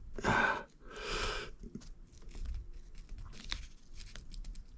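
Two short rushes of hiss in the first second and a half, then faint scattered clicks and scrapes of a thin pry tool working under a glued phone screen.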